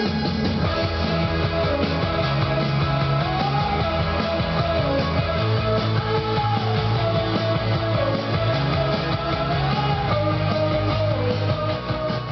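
Rock music with guitar, fading out near the end.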